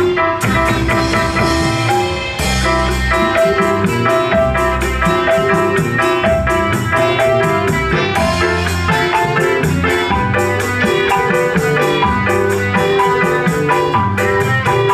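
Dangdut band music playing loudly, with drums, plucked strings and a fast, even percussion tick.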